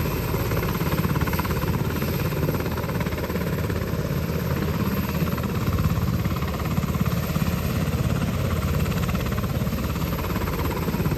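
Helicopter running, a steady low drone with a rapid pulsing beat.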